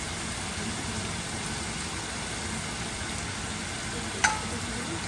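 Spiced chicken breast sizzling steadily as it fries, with a single sharp click about four seconds in.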